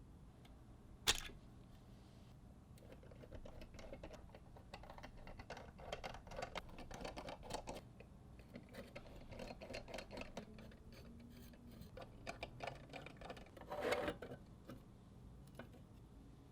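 Small hard plastic and metal parts of a mechanical keyboard being handled: one sharp click about a second in, then a long run of light irregular clicks and rattles, with a louder cluster near the end.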